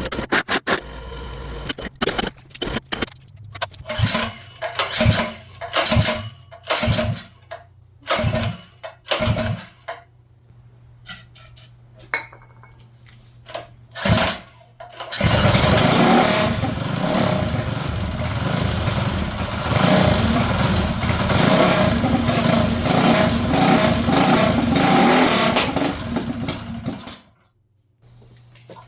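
Predator small engine on a custom minibike being cranked over in a string of short attempts, about a dozen, until it catches about halfway through and runs steadily for roughly twelve seconds, then cuts off suddenly near the end.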